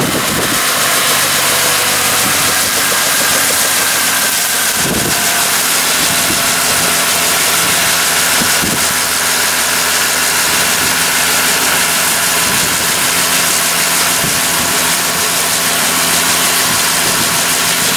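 Engine of a homemade open-frame helicopter running steadily with its main rotor turning: an even, loud rush of noise over a constant engine hum.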